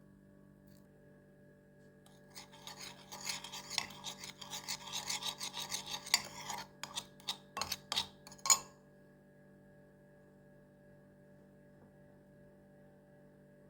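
Continuous rasping scrape for about four seconds, then a handful of separate sharp scrapes that stop about nine seconds in, over a faint steady hum.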